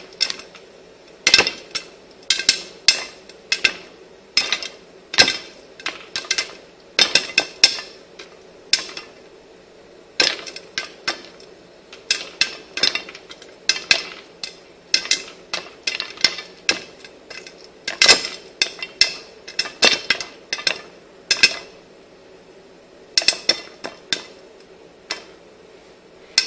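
Popcorn kernels popping: sharp, irregular pops, often several in quick succession, over a faint steady hum, with the popping thinning out near the end.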